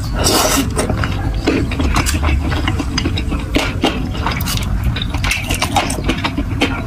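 Close-miked eating: chewing and wet mouth sounds from a bite of saucy meatball, with many small clicks and crackles. Chopsticks click and scrape against a ceramic bowl of spicy noodles.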